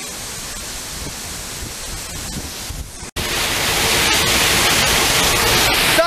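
Small waterfall pouring onto rocks: a steady rushing hiss. About three seconds in it cuts out for an instant, then comes back louder and brighter.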